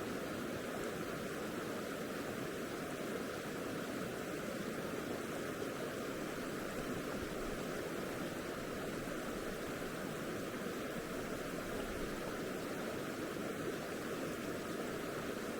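Steady rushing of a mountain stream's running water.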